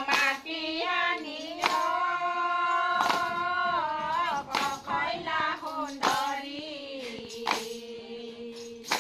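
A group of women singing an Assamese devotional naam together, drawing out long held notes that slide between pitches. A sharp beat marks the rhythm about every one and a half seconds.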